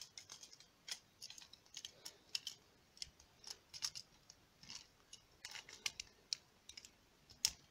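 Parts of a Beyblade Burst top (Kreis Satan 2 Glaive Loop) clicking and scraping as they are fitted together by hand: a string of faint, irregular sharp clicks, with a louder click near the end.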